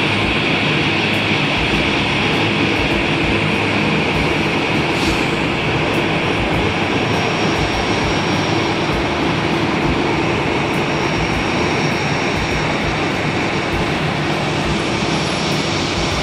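Steady engine and airflow noise of an Airbus A320 airliner heard from inside the cabin, with a low rumble underneath. A faint high whine comes in about halfway through.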